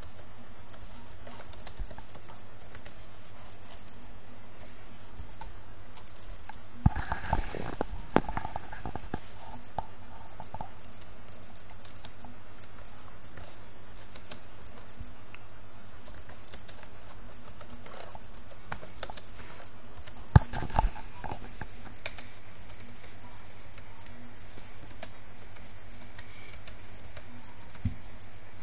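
Typing on a computer keyboard: irregular key clicks, with two louder clatters of keystrokes about seven and twenty seconds in, over a steady low hum.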